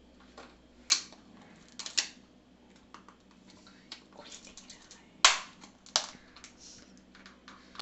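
Stainless steel dishes and a spoon clinking and clattering as food is served: several sharp, ringing clinks, the loudest about five seconds in, with lighter taps between.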